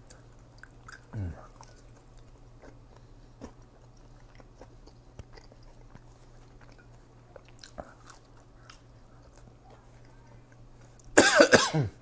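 A person chewing sweet potato fries, with faint scattered crunches and a brief falling voice sound about a second in. Near the end comes a short, loud cough into the hand, the loudest thing here.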